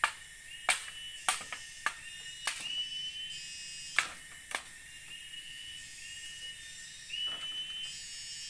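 Sharp knocks and taps of bamboo poles being handled and set against a bamboo frame, several in the first half and one more near the end. Underneath, a high call repeats about once a second over a steady high insect hiss.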